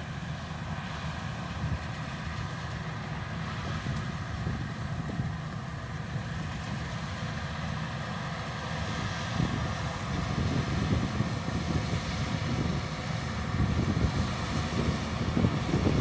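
Changfa CF805N rice combine harvester running while it cuts, its 95 HP turbo engine and threshing machinery giving a steady low drone that grows louder in the second half as the machine draws nearer.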